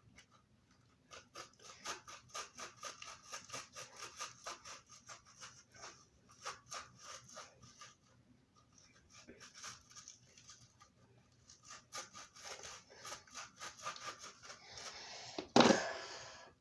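A knife blade sawing and scraping at a rubber moonball in quick rhythmic strokes, about five a second, in two spells with a short pause between them. A louder rough rustle near the end.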